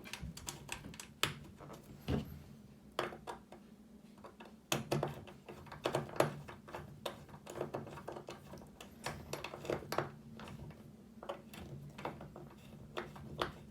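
Irregular small clicks and taps of a flat-blade screwdriver turning slotted screws into a metal serving cart's legs, over a faint steady low hum.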